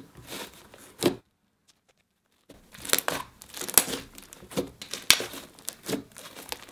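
Butter slime being pressed, squished and stretched by hand, giving a run of short crackles and soft pops. There is a brief gap of silence a little over a second in.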